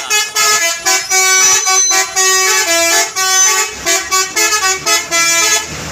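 Telolet multi-tone horn on a truck playing a quick melody: a string of short, steady notes that step up and down in pitch one after another.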